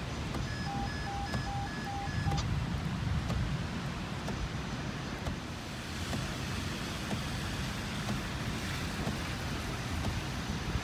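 Gusty thunderstorm wind buffeting the microphone over a steady outdoor hiss. In the first two seconds there is a quick run of electronic beeps.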